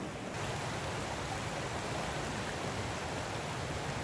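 Steady rush of a shallow, rocky mountain stream, its sound growing a little brighter a moment in.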